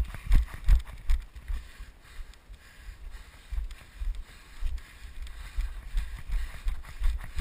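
Footsteps of a person walking through grass, heard as a run of low thuds on the body-worn camera, about two to three a second, easing off briefly about two seconds in.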